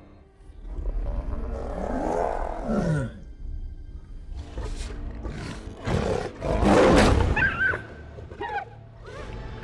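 Lions growling and roaring in a film soundtrack: one call slides down in pitch about two seconds in, and the loudest roar comes about two-thirds of the way through, with an orchestral score underneath.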